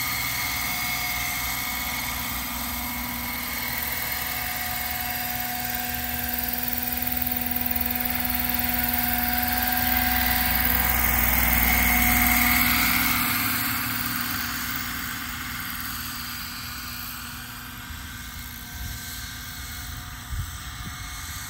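Radio-controlled 800-size EC130 scale model helicopter in flight, its rotor and drive making a steady whine. The sound grows louder as it passes close about twelve seconds in, then fades as it flies off into the distance.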